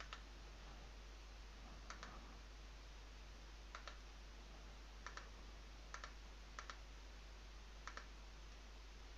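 Faint computer mouse clicks, about seven spread unevenly over the stretch, each a quick press-and-release double tick, over a steady low hum.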